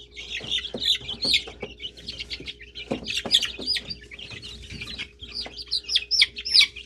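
A group of young chicks peeping continuously, with many short, high chirps overlapping, and a few faint knocks among them.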